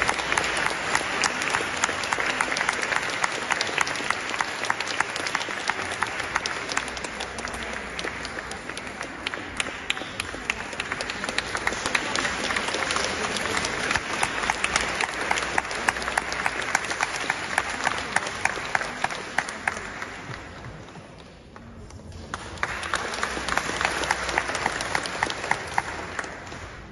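Audience applauding steadily. It dies down about 20 seconds in, then a second round of applause starts and fades out near the end.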